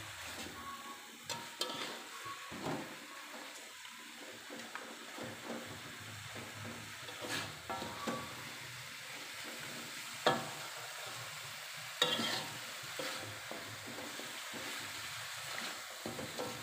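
Chicken feet stir-fried in a chili sauce in a wok: a steady sizzle with a metal spatula scraping and knocking against the pan now and then, the sharpest knocks about seven, ten and twelve seconds in.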